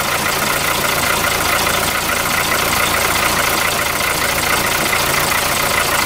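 VW Polo Mk4 engine idling steadily with its accessory drive belt removed. Without the belt the earlier loud noise is gone, which points to the belt tensioner's bearing as the noisy part.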